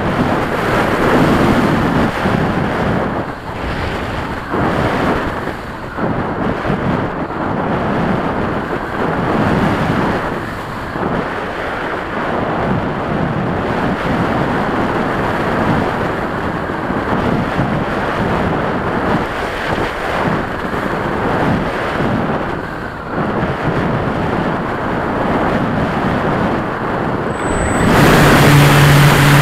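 Wind rushing over the microphone of a camera mounted on a flying RC model airplane's wing, swelling and dipping. Near the end the plane's motor comes in with a steady low hum and everything gets louder.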